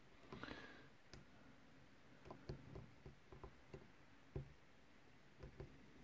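Faint, small clicks and a brief scrape from a steel hook pick working the pin stack of a brass Corbin padlock held under tension, about a dozen irregular ticks with one louder click about four and a half seconds in.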